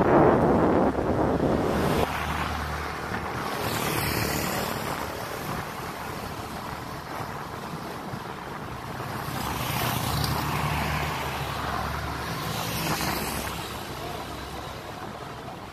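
Street traffic heard from a moving bicycle: steady road noise with motor vehicles swelling and fading a few times. Wind buffets the microphone, heaviest in the first two seconds.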